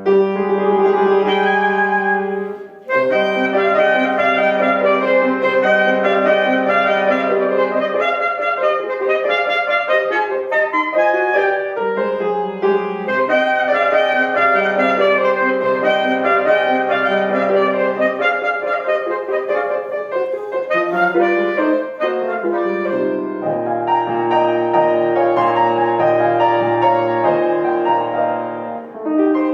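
A wind instrument playing a melody over piano accompaniment, with a brief break about three seconds in.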